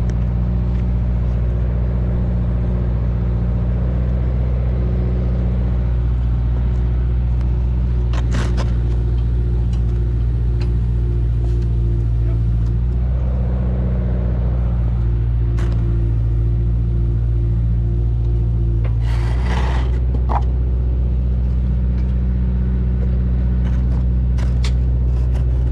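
The engine of a cab-operated machine running steadily while driving an earth auger to drill a pile hole, its pitch and load shifting a few times. Brief clanks and a short rush of noise about two-thirds of the way through.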